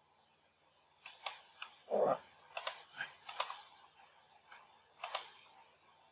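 Scattered clicks from a computer keyboard, often in quick pairs, over a few seconds, with one duller, lower thump about two seconds in.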